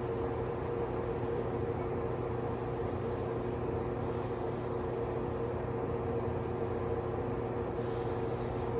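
Steady mechanical hum holding two constant tones over a low drone, unchanging throughout.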